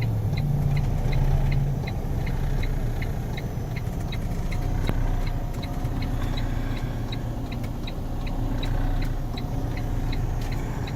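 Freightliner Cascadia semi truck's diesel engine running with a steady low drone, over a fast, regular ticking of about three short high ticks a second.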